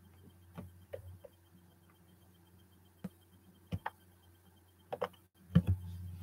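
A steady low electrical hum with scattered small clicks and knocks, the loudest coming in a pair near the end.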